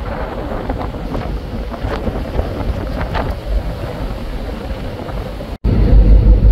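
Wind buffeting the microphone on the open deck of a container ship at sea, a steady rushing rumble. About five and a half seconds in it cuts out for an instant, then comes back louder and heavier.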